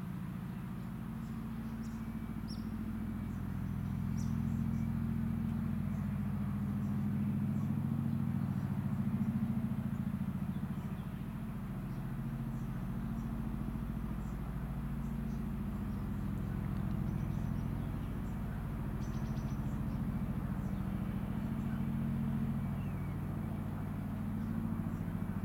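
Boeing CH-47 Chinook helicopters, still out of sight, with the low pulsing thud of their tandem rotors and turbine drone. The sound builds over the first few seconds and swells again near the end as they approach. Faint bird chirps sit above it.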